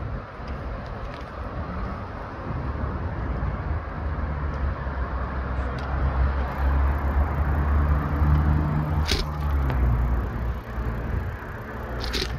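Road traffic on a busy city street, a steady rumble with a low engine hum that swells in the middle, heard from a moving bicycle with wind buffeting the microphone. Two sharp clicks, one about three-quarters of the way through and one near the end.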